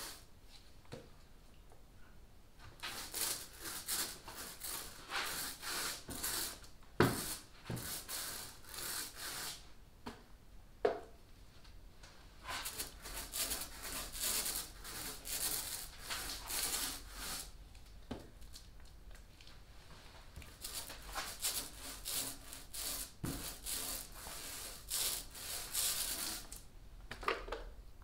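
Small paint roller spreading silica-thickened epoxy over plywood in repeated back-and-forth strokes, a hissing rub against the wood. A couple of sharp knocks come in between the strokes.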